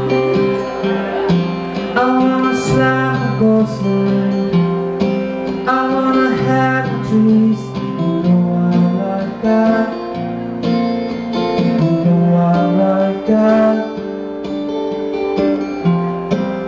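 A live band plays the instrumental intro of a rock song, led by strummed guitar, with sustained notes and changing chords.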